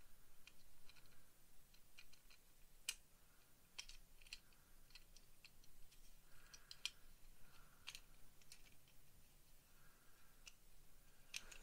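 Faint, irregular clicks and taps of injection-moulded plastic model-kit parts being handled and pushed together on a 1/35 scale helicopter cockpit tub, as a part is worked into place in a dry fit.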